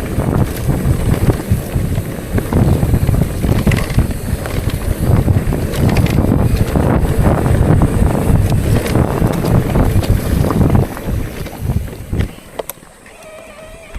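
Wind buffeting the microphone while riding a bicycle, a loud rumbling noise that drops away sharply near the end.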